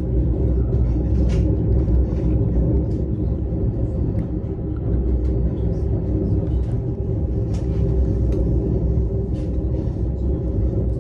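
Steady low rumble and hum of a moving passenger train, heard from inside the carriage, with a few faint clicks.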